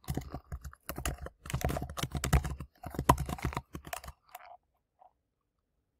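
Typing on a computer keyboard: a quick, irregular run of keystrokes for about four seconds that then stops.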